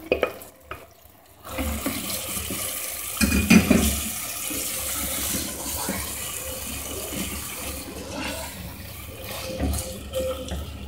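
Chicken pieces sizzling in hot oil and tomato-yogurt masala in a cooking pot, a steady hiss that starts about a second and a half in. There is a louder knock about three and a half seconds in as the chicken is stirred.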